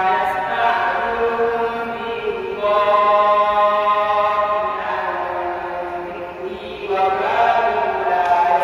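A boy reciting the Quran in the melodic chanted style of tajwid. He holds each long, drawn-out note for about two seconds before moving to a new pitch.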